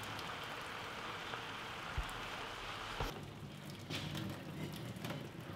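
Vegetable stir fry sizzling steadily in a frying pan. After about three seconds the sizzle gives way to hot water being drained from a steel pot of cooked quinoa into a sink, with a few light knocks of the pot and lid.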